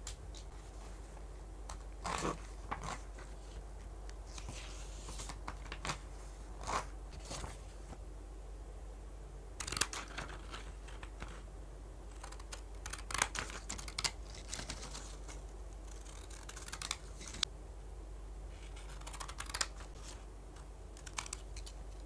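Paper being handled on a notebook page: short, irregular rustles and crinkles, with a few sharper snipping or tearing sounds, as cut-out paper journal cards and tape are laid down. A steady low hum runs underneath.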